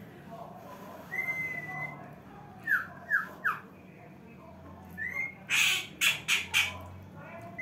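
A bird calling: first a held whistled note, then three quick falling chirps and a rising note, then four loud, harsh squawks.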